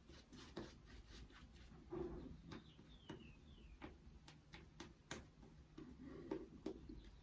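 Razor blade scraping across lathered stubble, a faint irregular crackle of short clicks as it cuts the hair.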